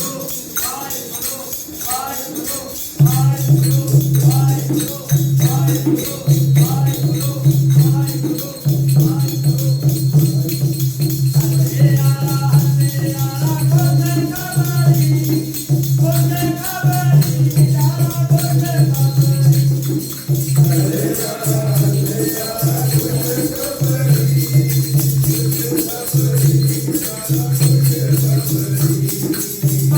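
Devotional hymn singing with instrumental accompaniment and a jingling, rattling percussion. About three seconds in, a strong low sustained note comes in and then pulses on and off.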